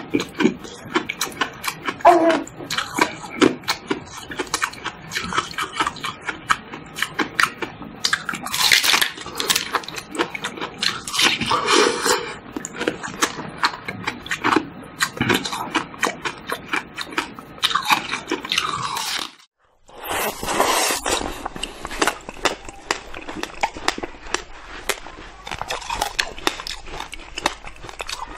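Hard frozen ice, frozen in the shape of a water bottle, being bitten and chewed: a long run of irregular sharp crunches and cracks as chunks are bitten off and ground between the teeth. The crunching stops briefly about twenty seconds in, then carries on.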